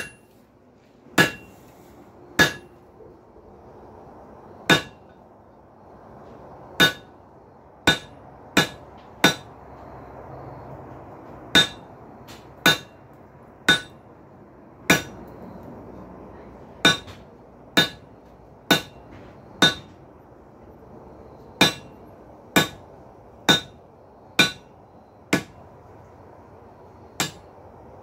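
Hand hammer striking hot steel laid over a hot cut in the anvil, cutting the bar off; each blow rings out sharply. About twenty strikes come unevenly, often in runs of three or four about a second apart.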